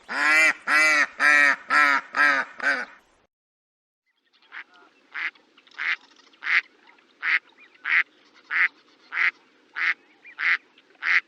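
Ducks quacking. First comes a loud run of about seven quacks in three seconds, the last ones softer. After a second's pause a run of shorter, thinner quacks follows, evenly spaced at about three every two seconds, over faint background noise.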